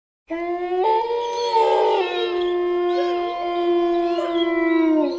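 Horror-film sound effect: a steady, held horn-like drone that starts abruptly, with more tones joining about a second in and wavering glides rising and falling over it.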